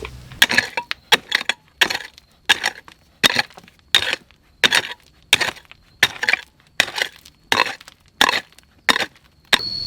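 Hand tool working wood in even, rhythmic strokes, about one every 0.7 seconds, each a short crunching hit. A faint, steady, high insect trill sounds in the background.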